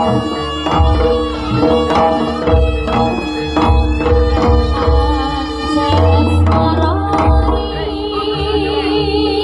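Live jaranan accompaniment music: kendang hand drums beating a driving rhythm over held, sustained melodic tones from the ensemble.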